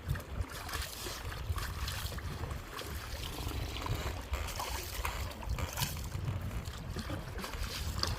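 Wind buffeting the microphone, a low rumble, over irregular water splashing and lapping.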